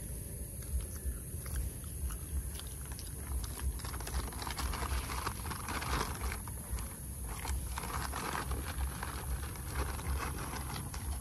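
Close rustling and scattered clicks, densest from about four to nine seconds in, over a steady low rumble.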